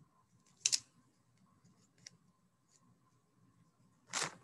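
Rubber band and plastic egg being handled: a sharp double click about a second in, a faint tick a little later, and a brief rustling burst near the end.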